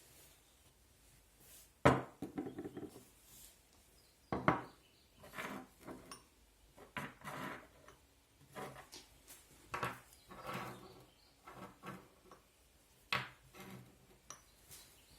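Irregular knocks and clinks of hard parts being handled and set down on a workbench, the sharpest knock about two seconds in. No motor is running.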